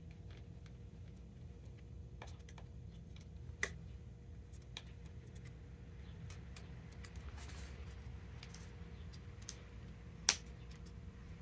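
Faint small clicks and taps of plastic racket grommet strips being handled and worked with an awl, with two sharper clicks, one about a third of the way in and one near the end.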